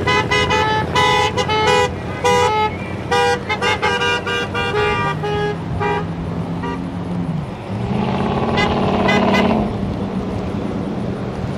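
Car horns of a vehicle convoy honking in many short, overlapping toots, thinning out after about six seconds. A lower, longer horn-like tone follows, then a louder vehicle sound swells for about two seconds and drops off near the end.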